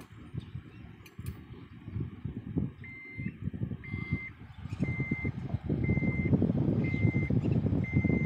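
Backup alarm beeping, a steady high beep about once a second, starting about three seconds in. A low rumble underneath gets louder about halfway through.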